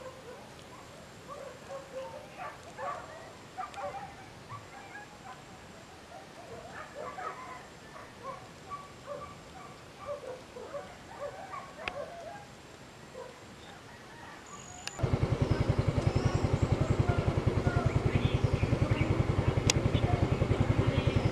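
Faint scattered bird calls at first. About 15 s in, a small engine starts being heard close by, running steadily with a rapid even pulsing, and it drowns out the birds.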